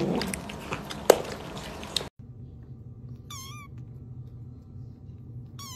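A tabby cat chewing food held in its paws, with wet clicking crunches for about two seconds. Then a kitten mews twice, two short, high, wavering mews about two seconds apart.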